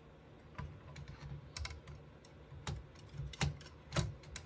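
Heat sink and blower-fan assembly being fitted over the CPU in a small computer case: irregular clicks and light knocks of metal and plastic as it is seated, the firmest knocks near the end.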